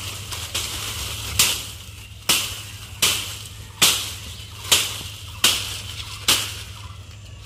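A curved chopping blade hacking at dry branches: about eight sharp chops at a steady pace, roughly one every 0.8 seconds, each dying away quickly, over a steady low hum.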